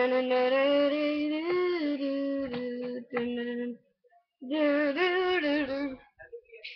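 A child's voice singing long, held wordless notes in two phrases, the second starting about four and a half seconds in.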